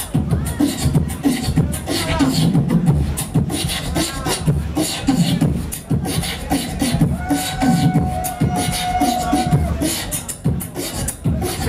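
Human beatboxing: a steady rhythm of mouth-made kick-drum thumps and snare hits, with a held vocal note for a couple of seconds a little past the middle.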